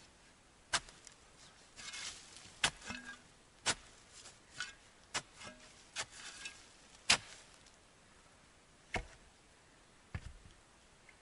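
Shovel chopping into soil while digging: sharp, irregular strikes about once a second, the loudest about seven seconds in, with short scrapes and rustles of earth between the first few.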